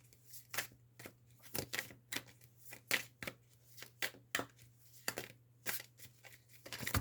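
A deck of oracle cards being shuffled by hand: a run of short, crisp, irregular riffling and flicking strokes, a few each second.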